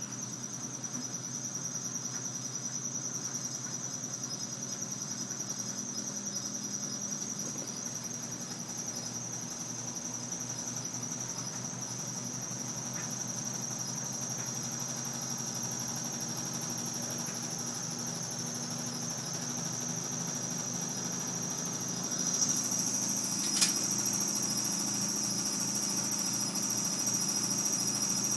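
Bosch front-load washing machine running: a steady low hum under a high-pitched whine. It gets a little louder about 22 seconds in, with a single sharp click shortly after.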